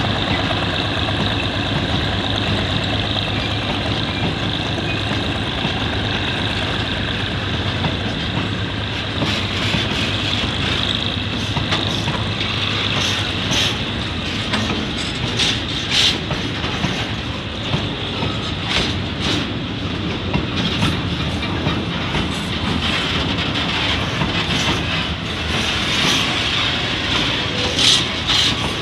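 Railway tank wagons of a long oil train rolling past, a steady rumble of wheels on rails with clickety-clack over the rail joints. The clacks become frequent about a third of the way in.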